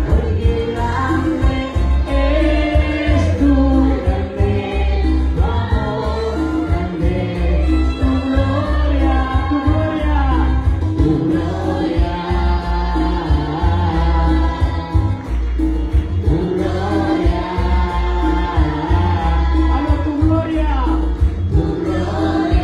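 Live gospel worship music: a man sings lead into a microphone and a group of women sing with him, over amplified backing music with a strong bass.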